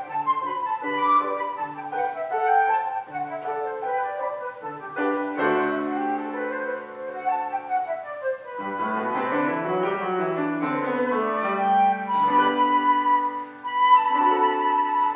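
Solo woodwind playing a classical concerto with piano accompaniment: a sustained, moving melody over a piano line.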